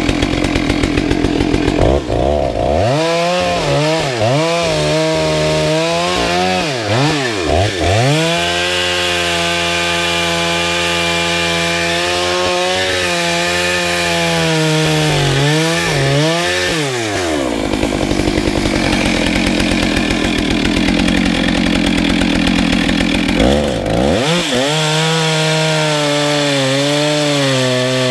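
Two-stroke chainsaw cutting through firewood rounds at full throttle. The engine's pitch dips and recovers again and again as the chain bites into the wood, then holds steady. In the middle the sound turns rougher and noisier for several seconds, and the pitched engine sound returns near the end.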